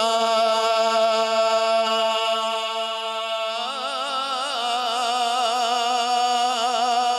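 A man's solo voice in melodic Quran recitation (tilawat), holding one long note, then wavering in a rippling ornament from about three and a half seconds in.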